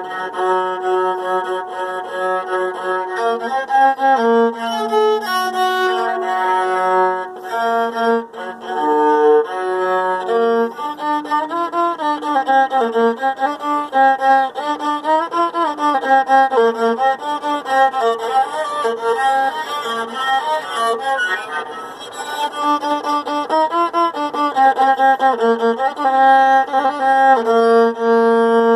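Viola played solo with a bow: a slow melody of held notes and stepwise phrases, some sliding between pitches.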